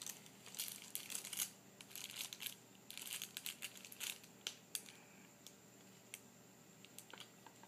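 Flexible plastic ribbon cable being handled over a laptop LCD panel: quick crinkling and clicking, dense for about the first five seconds, then only a few scattered clicks.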